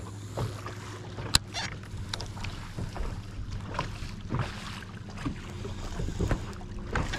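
Steady low hum of a bass boat's electric trolling motor, with scattered sharp clicks and taps on top.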